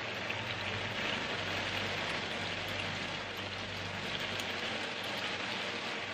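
Olive-oil pan sauce with sardines, cherry tomatoes and spinach sizzling steadily in a hot skillet as pasta is added and tossed.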